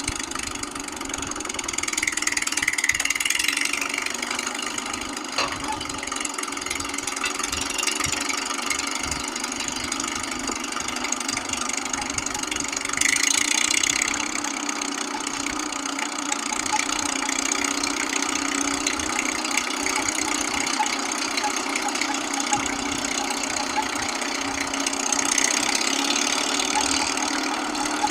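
A motor running steadily with an engine-like knock, with a few brief surges in level along the way.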